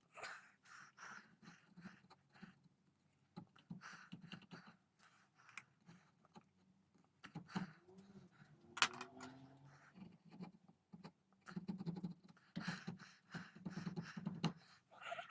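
Wood chisel paring and scraping into a rifle stock to cut the trigger inlet: a run of short, irregular scraping strokes and small clicks, with one sharper click about nine seconds in.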